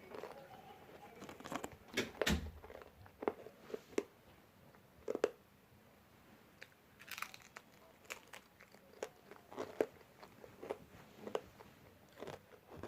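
Sweet potato chips being bitten and chewed: irregular crisp crunches, some louder than others.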